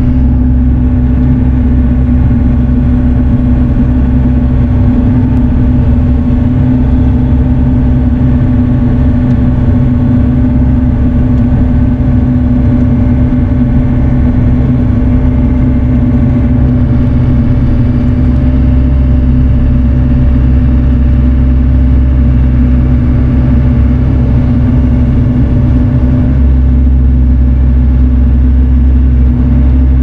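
Bobcat mini excavator's diesel engine running steadily, heard from inside the open-door cab, with a steady drone and a heavy low rumble.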